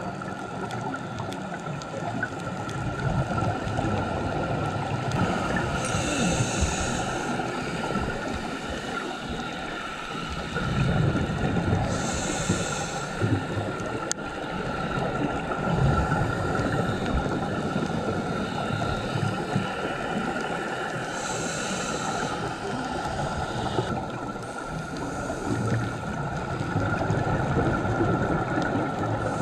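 Underwater sound of a scuba diver breathing through a regulator: a hiss on each inhale every several seconds, alternating with the low rumble of exhaled bubbles, over a steady thin hum.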